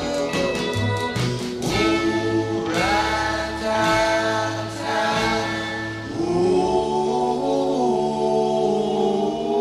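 1958 doo-wop record: a male vocal group singing in close harmony over a light band backing with a drum beat. About six seconds in the beat drops away and the voices hold long harmony chords.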